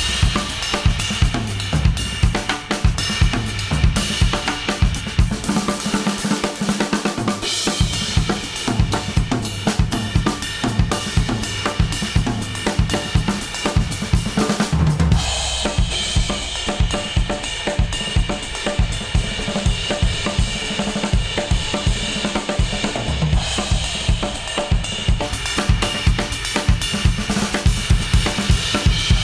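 Instrumental music with a full drum kit (kick, snare, hi-hats, cymbals) played back through wireless earbuds and recorded in an artificial ear simulator. About halfway through the sound changes abruptly, the highest treble thinning out.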